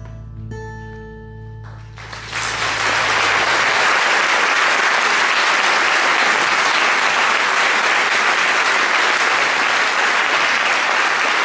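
Last acoustic guitar notes ring out, then about two seconds in an audience breaks into loud, steady applause that fills the rest of the time.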